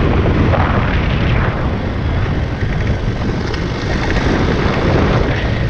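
Riding a Kawasaki dirt bike: steady wind rumble buffeting the bike-mounted camera's microphone, mixed with the motorcycle's engine and tyre noise.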